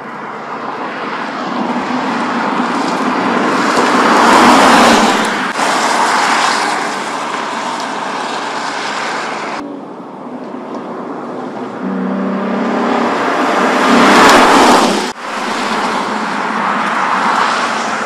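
A Lexus IS 350 F Sport sports sedan and its 3.5-litre V6 driving past at speed, the engine and tyre noise swelling to a loud peak as it nears and falling away. It happens twice, with abrupt cuts between shots.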